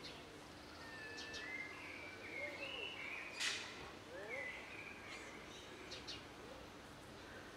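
Quiet outdoor ambience with small birds chirping and whistling now and then; a short, sharp chirp about three and a half seconds in is the loudest sound.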